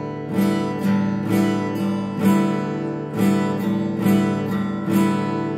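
Acoustic guitar strummed on its open strings, no chord fretted, in a slow waltz strumming pattern of about two strokes a second, the strings ringing on between strokes. The strings are damped at the end and the sound stops abruptly.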